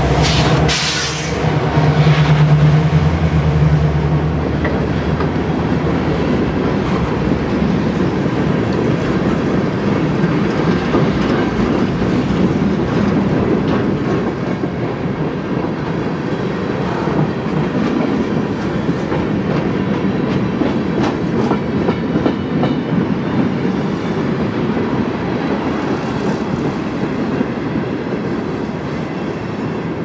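A pair of Canadian Pacific GP20C-ECO diesel locomotives running past under power for the first few seconds, then a long string of freight cars rolling by with steady wheel clatter over the rail joints that slowly fades.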